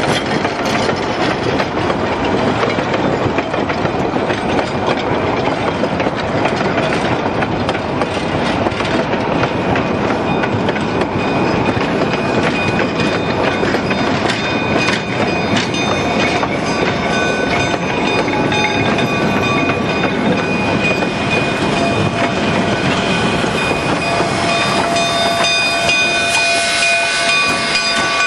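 Narrow-gauge K-36 steam locomotive rolling slowly through a rail yard, heard from on board: a steady rumble of running gear and wheels on rail. Thin, steady high-pitched tones join in about halfway and grow stronger toward the end.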